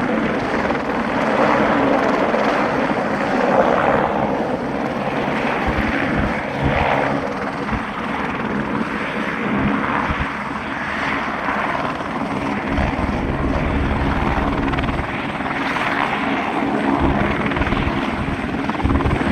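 Helicopter flying in the distance, its rotor and engine noise steady throughout, with a heavier low rumble coming in about two-thirds of the way through.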